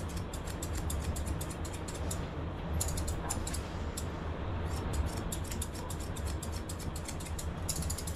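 Grooming scissors snipping through dog hair in quick runs of several crisp snips a second, with short pauses between runs, over a steady low rumble.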